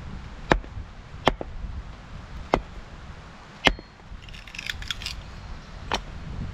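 Sharp wooden knocks from firewood work, five of them at uneven spacing about a second apart, with a brief high clatter just past the middle.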